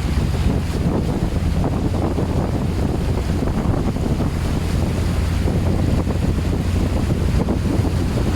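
Floodwater rushing and splashing around a 4x4 as it drives through, over a steady low rumble.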